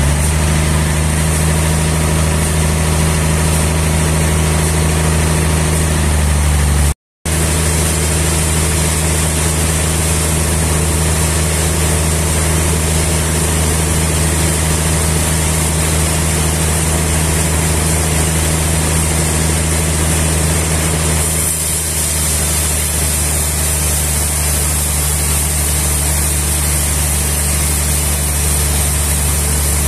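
A sawmill's engine running steadily at a constant speed. The sound cuts out for a moment about seven seconds in.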